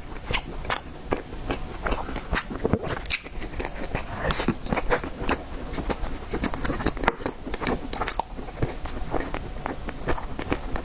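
A person eating tiger skin roll cake close to the microphone: continuous chewing with many quick, irregular wet mouth clicks and smacks.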